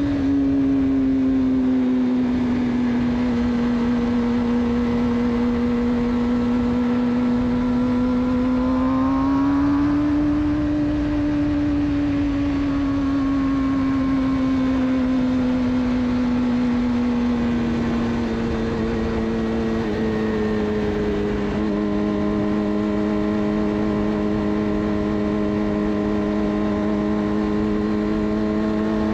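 Suzuki GSX-R600 inline-four engine through a de-catted Yoshimura exhaust, running at a steady cruise. The revs rise a little about ten seconds in, then ease off slowly. Wind rush underneath.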